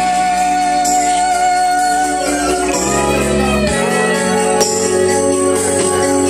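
Karaoke backing music playing, with a woman singing along live into a handheld microphone.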